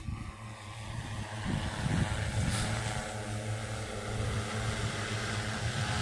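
Multirotor agricultural spray drone's propellers humming steadily as it flies toward the listener, growing louder over the first couple of seconds and then holding level.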